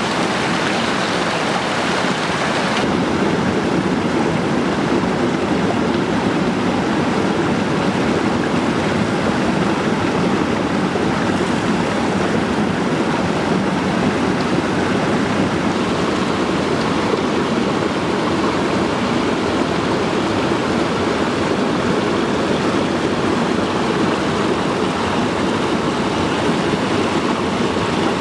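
Steady rushing of a small stream tumbling over rocks. About three seconds in, the sound turns a little duller, with less hiss.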